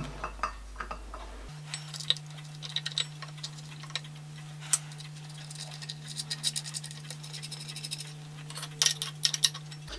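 Light metallic clicks, taps and scrapes of hands seating a clamp and nut on a gunmetal casting on a milling machine table, over a steady low hum.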